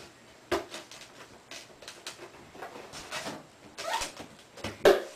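Scissors scraping and cutting along the packing tape of a cardboard box, with paper-and-cardboard rips. It is a run of short, sharp strokes about every half second, the loudest near the end.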